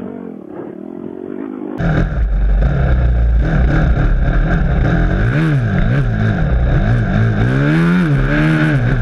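Four-stroke single-cylinder Honda off-road dirt bike engine revving up and down repeatedly while riding a bumpy trail. It sounds thin and muffled at first, then turns loud and full about two seconds in.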